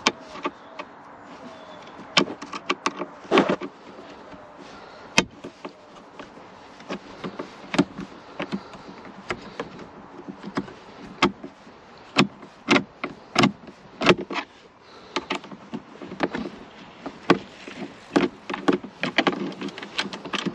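Irregular clicks and knocks of a T20 Torx screwdriver and hard plastic trim as the glove box screws are undone in a car's dashboard.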